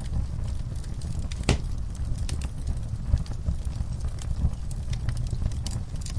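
Wood fire burning in a fireplace: a steady low rumble of flames with logs crackling in irregular sharp pops, one louder pop about one and a half seconds in.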